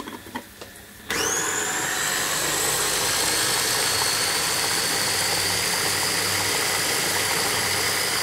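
Electric mini food chopper: a few light clicks as the motor unit is pressed onto the bowl, then about a second in its motor starts, the whine rising quickly and settling into a steady run as it chops zucchini flesh.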